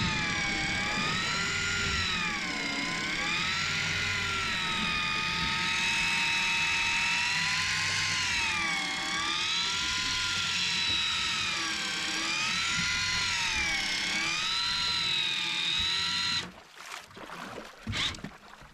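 Electric deep-drop fishing reel winding in line, with the rod bent over under load. Its motor whines steadily, the pitch rising and falling again and again, and it stops about sixteen seconds in.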